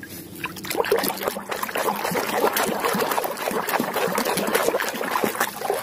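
Muddy water splashing and sloshing in a plastic tub as a hand scrubs a plastic toy lobster under the surface, starting just after the beginning and easing off near the end.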